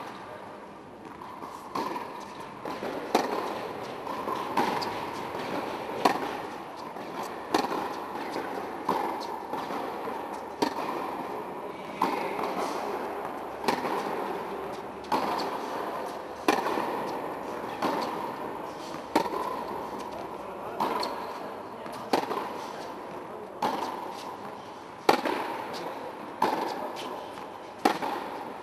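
Tennis rally: rackets striking the ball back and forth, a sharp pop about every second and a half, each ringing briefly in the reverberant indoor hall.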